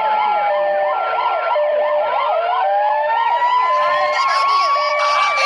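Several emergency-vehicle sirens sounding at once: a fast rising-and-falling wail, an alternating two-note hi-lo, and a slower tone that falls and then climbs, all cutting off together at the end.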